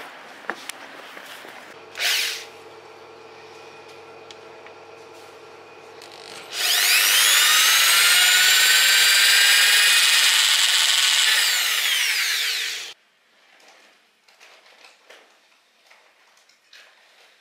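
Corded electric drill drilling a small hole for about six seconds. Its whine rises in pitch as it spins up, holds steady, then falls and cuts off suddenly.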